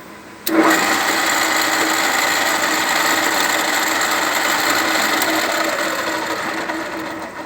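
1 hp gear-head pedestal drill press cutting into a workpiece: a steady cutting noise over the machine's running hum, which starts abruptly about half a second in and tails off near the end.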